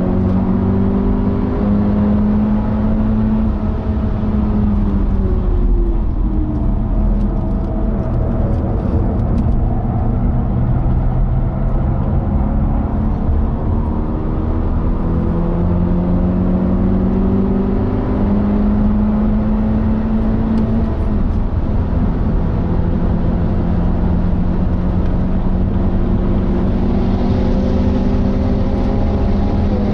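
BMW 420i Gran Coupe's turbocharged four-cylinder engine, tuned and fitted with a Bastuck catback exhaust, heard from inside the cabin at high revs on track. The pitch climbs, falls away about five seconds in as the car brakes and shifts down for a corner, then climbs through the gears again with an upshift about twenty-one seconds in, over steady road and wind noise.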